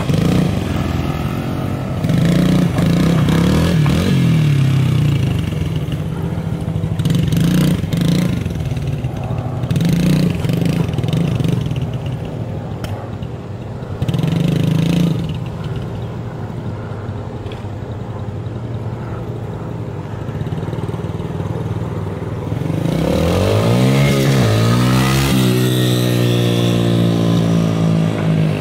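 Dirt bike engines running and revving in repeated throttle bursts every few seconds. Near the end one engine's pitch sweeps up and back down, then it holds a steady run.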